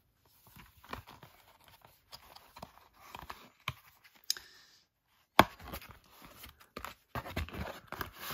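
Stiff card and paper being handled: a high-gloss card envelope and printed cards slide, scrape and rustle in the hands, with scattered light taps. There is a sharp click about five seconds in, and a denser spell of rustling near the end.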